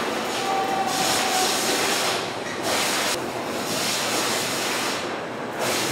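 Fish processing line running: conveyor belts and machinery give a steady mechanical noise, with repeated swells of hiss every second or so.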